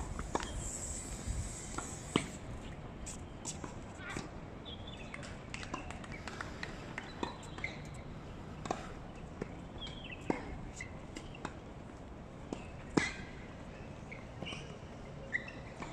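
Tennis-court ambience: scattered sharp knocks of tennis balls being hit or bounced, the loudest about 13 seconds in, over faint distant voices and short bird chirps.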